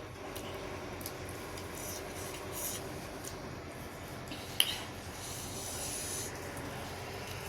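JCB backhoe loader working, a steady machine drone with a few sharp clicks, the loudest a little past halfway.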